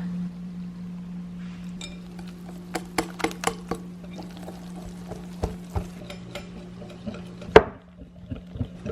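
Muffin batter being stirred in a bowl, the utensil clinking against the bowl several times about three seconds in and knocking once, louder, near the end, over a steady low hum.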